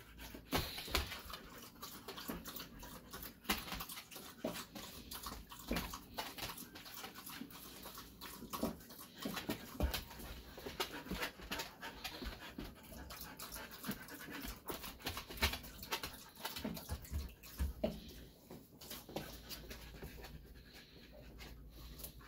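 A dog panting and sniffing as it searches, with many irregular short clicks and taps as it moves about.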